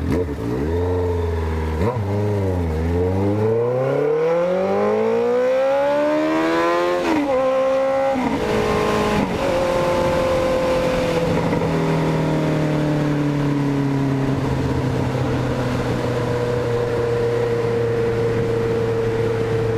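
Honda CB 1300 four-cylinder motorcycle engine accelerating hard, its pitch climbing in one long sweep, then dropping sharply with two upshifts about seven and eight seconds in. After that it cruises steadily, the pitch easing slowly down.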